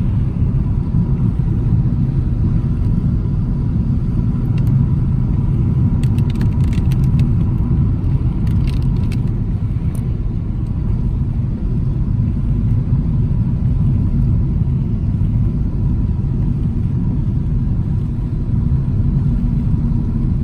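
Steady low rumble of a car driving on a wet road, heard from inside the cabin, with a few faint ticks about midway through.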